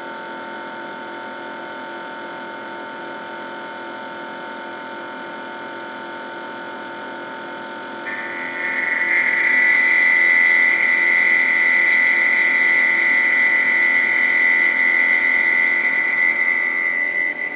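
CNC mill machining a motorcycle top clamp: a steady machine hum with several level tones, then about eight seconds in a much louder, high, steady whine sets in as the cut gets under way and holds.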